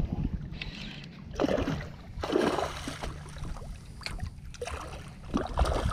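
Water lapping around a kayak and wind on the microphone while a hooked fish is fought on a bent rod, with three brief louder bursts of noise, about a second and a half, two and a half and five and a half seconds in.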